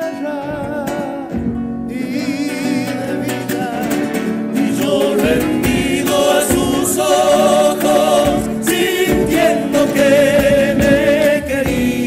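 Live Argentine folk song: voices singing in harmony over strummed acoustic guitars, with a bombo legüero drum beating. The music builds in loudness from about a third of the way in.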